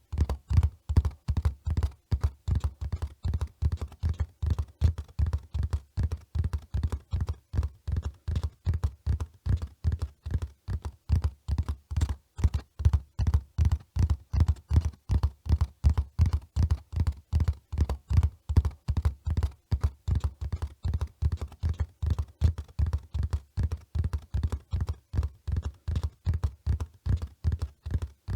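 Horse hoofbeats of a running horse: a fast, even rhythm of heavy, low thuds that keeps up without a break.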